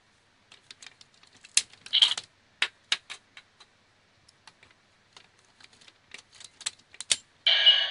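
Scattered sharp plastic clicks and taps from a Kyoryujin robot toy being handled, busiest in the first half and again about six to seven seconds in. A louder continuous sound cuts in near the end.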